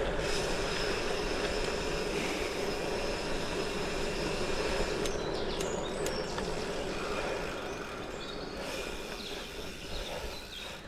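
Gravel bike rolling along on Goodyear Connector gravel tyres: a steady rushing tyre and wind noise with an even whirring hum, easing off somewhat near the end.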